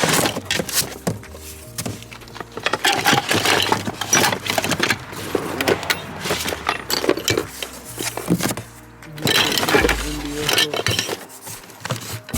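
Background music with a stepping bass line, over a steady scatter of sharp knocks and clatter.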